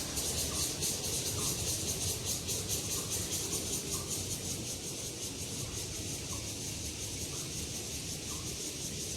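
Insects droning in a high, rapidly pulsing chorus over a low steady rumble.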